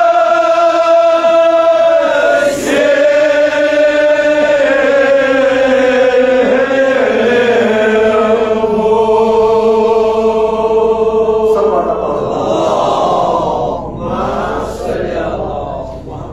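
Men chanting a Kashmiri marsiya (Shia elegy for Imam Hussain), the voices holding long drawn-out notes. About twelve seconds in, the held note breaks off and the chant turns more broken and wavering as it fades.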